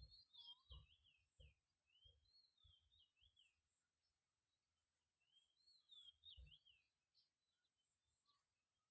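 Faint birdsong: a songbird sings phrases of quick slurred whistled notes, one phrase at the start and another about six seconds in. A few soft low thuds fall among the notes.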